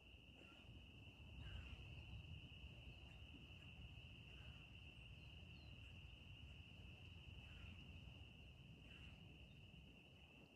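Faint, steady, high-pitched trilling chorus of small calling animals, which the uploader wonders may be frogs, with a few fainter short calls now and then and a low rumble underneath.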